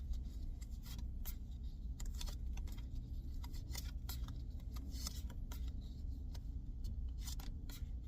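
Pokémon trading cards handled and slid one past another by hand: light, irregular clicks and rustles, over a steady low rumble.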